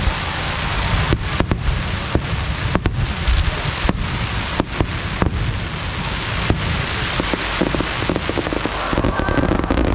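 Fireworks display: aerial shells bursting in sharp bangs, roughly one every second, over a continuous dense rush of noise. A rapid flurry of small pops comes near the end.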